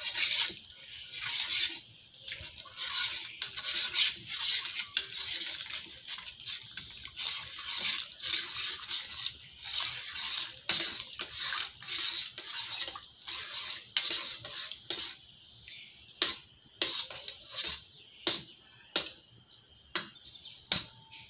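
Metal spoon stirring and scraping against a stainless steel pot while boiling water from a kettle pours in and cooks cornstarch slurry into pap. Rapid repeated scraping strokes over the hiss of pouring, becoming sparser and quieter near the end as the pouring stops and the pap thickens.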